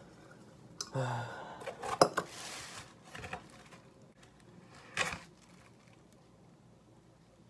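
A plastic bowl and a styrofoam takeout container in a plastic bag being handled on a table, then a plastic spoon scooping rice from the container: scattered knocks and rustles, the sharpest about two seconds in and again about five seconds in.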